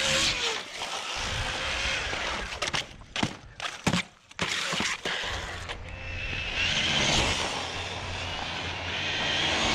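Traxxas Sledge 1/8-scale RC monster truck running on 8S, its Spektrum 1250 kV brushless motor and drivetrain whining as it speeds across asphalt. The high whine is strongest in the second half.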